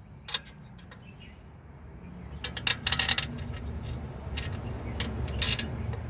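Sharp metallic clinks of tools and clutch parts knocking against metal during clutch and pressure plate fitting. There is one clink early, a quick rattle of clinks about two and a half to three seconds in, and a few single clinks near the end. Under them a low rumble rises about two seconds in.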